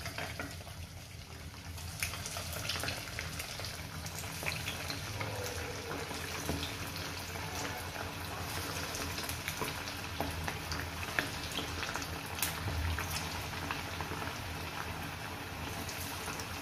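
Cauliflower pakoras (fritters of mashed cauliflower, gram flour and rice flour) deep-frying in hot oil in a kadhai: a steady sizzle with many small crackling pops.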